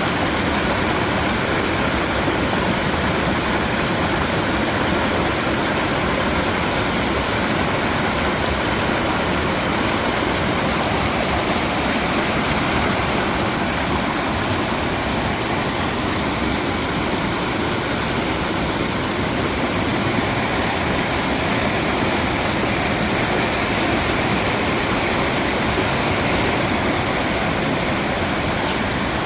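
Mountain valley stream flowing: a steady, unbroken rush of water.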